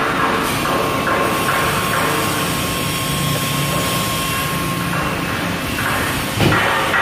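Toyokoki sheet-metal press brake running: a steady mechanical noise with a thin whine through the middle and a sudden knock about six and a half seconds in.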